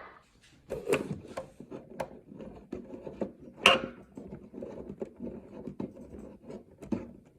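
Irregular clicks, light knocks and rubbing, as of hands handling the plastic cabinet and controls of a tube clock radio, with one sharper click about halfway through.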